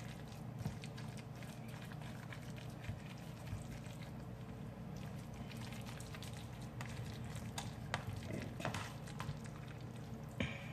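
Faint taps and scrapes of a utensil pressing chicken salad flat in its container, over a steady background hum.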